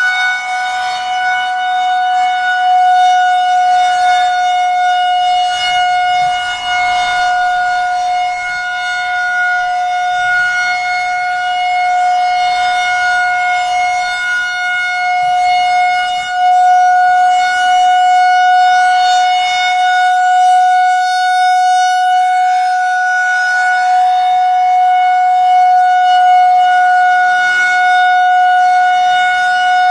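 Federal Signal 2001-130 electromechanical outdoor warning siren sounding the Full Alert signal: one steady, unwavering tone at full speed that swells and fades in loudness as the rotating siren head sweeps past.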